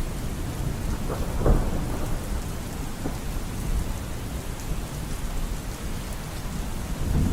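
Thunderstorm: steady heavy rain with low rumbling thunder. A louder peal of thunder comes about a second and a half in, and the rumble swells again near the end.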